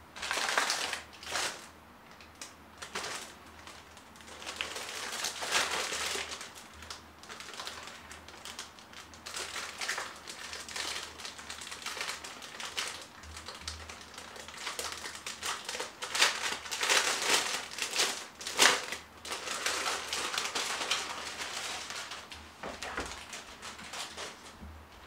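Paper and plastic packaging being handled and shuffled: irregular rustling and crinkling with sharp clicks and taps.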